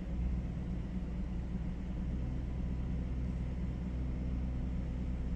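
2013 Honda Accord's engine running at a high idle of about 2000 rpm, a steady low hum. The scanner reports the electronic throttle's idle position as not learned, which the mechanic takes for the cause of the fast idle.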